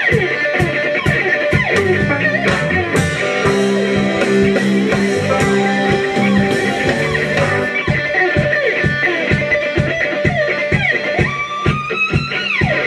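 Live electric blues band playing an instrumental passage: an electric guitar lead with gliding, bending notes over bass guitar, rhythm guitar and a steady drum beat.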